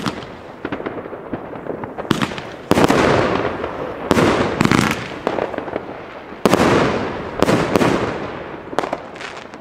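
El Gato Kamuro 30 mm firework battery firing a run of shots, about eight or nine sharp bangs at uneven intervals, each fading out over about a second. The loudest two come about a third of the way in and about two-thirds through.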